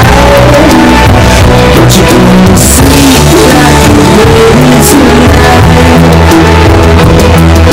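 Background music: a loud song with a singing voice over a steady instrumental backing.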